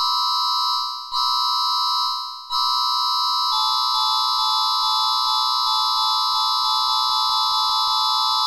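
Synthesized emergency-alert attention tone: a chord of steady high electronic tones. It is sounded twice briefly, each time fading, and then held, with a lower note joining partway through.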